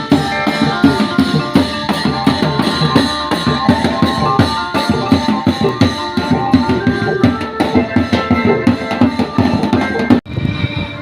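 Background music with drums beating a quick, steady rhythm under melodic notes; about ten seconds in it cuts off abruptly and a different, lighter piece begins.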